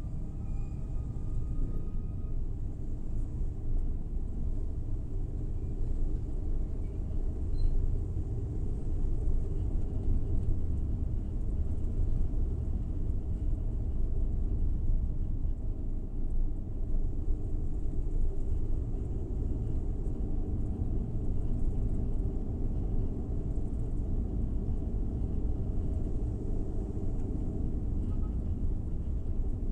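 Steady low rumble of a Suzuki Every Wagon driving along: engine and tyre noise at an even speed.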